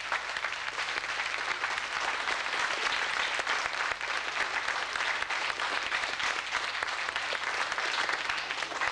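Audience applauding: a dense, steady round of clapping from many hands.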